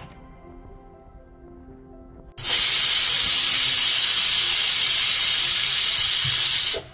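Pressure cooker venting steam past its weight valve: a loud steady hiss that starts suddenly about two and a half seconds in and cuts off just before the end. It is the cooker's whistle, the sign that it has come up to pressure. Faint background music before it.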